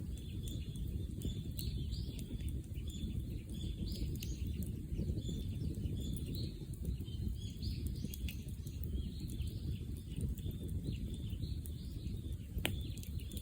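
Bonfire burning with a low steady rush and scattered crackles, one sharp pop near the end, while birds chirp over it with many short high notes.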